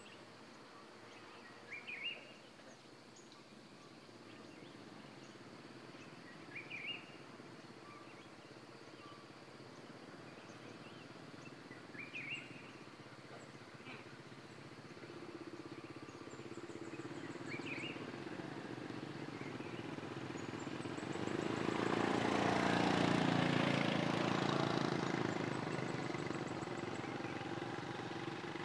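Motorbikes approaching along the road, their engines growing louder until they pass close by about three quarters of the way through, then easing off. Before that, a bird gives short chirps about every five seconds over quiet outdoor background noise.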